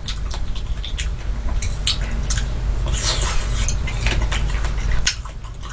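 Close-miked chewing of sweet persimmon, whose flesh is soft outside and crisp inside: wet mouth clicks and small crunches, with a louder stretch about three seconds in, over a steady low hum.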